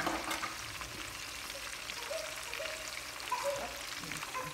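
Sliced onions and other vegetables with thyme sizzling in oil in a non-stick frying pan: a steady crackling sizzle of vegetables sautéing.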